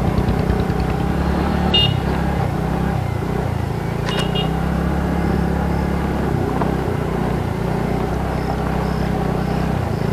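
Motorcycle engine running at low, fairly steady revs, its note shifting slightly up and down as it rides. Two short high beeps sound about two and four seconds in.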